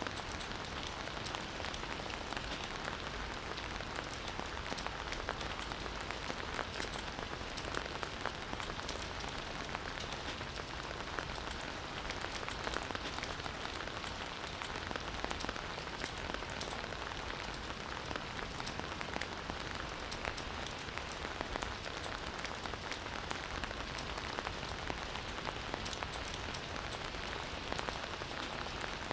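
Campfire burning with a steady, dense crackle of many small pops and snaps.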